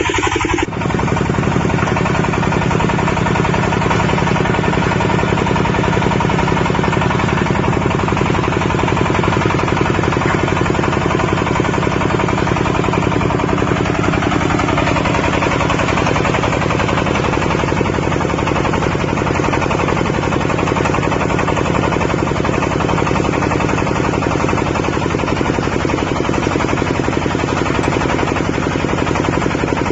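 Portable water well drilling rig's 25 HP diesel engine running steadily, with a rapid, even chugging knock that holds throughout.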